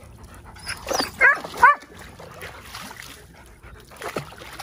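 A dog giving quick, high yelping barks: a cluster of three about a second in, the last two the loudest, and one more near the end.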